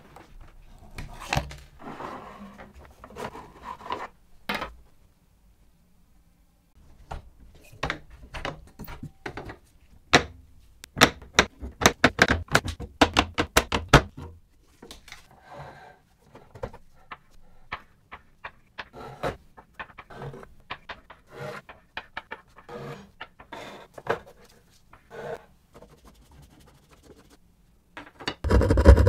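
Hands and hand tools working on an old wooden table-football game: a string of small clicks, knocks and rattles of wood and metal as the rods, wooden players and frame are handled. A dense run of quick rattling clicks comes midway, and a heavier knock of wood comes near the end.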